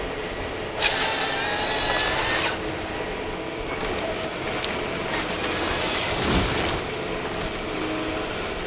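Ponsse forest harvester felling a spruce: the machine's engine runs under load while the harvester head's chain saw cuts through the trunk in a loud, rising whine for about a second and a half. Then the machine keeps working as the cut tree comes down into the head, with a low thud a little past the middle.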